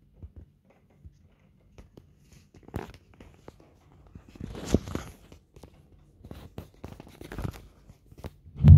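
Scattered ticks and taps of raindrops on window glass, with rustling and clicks of the phone being handled about halfway through. A sudden loud low rumble starts right at the end.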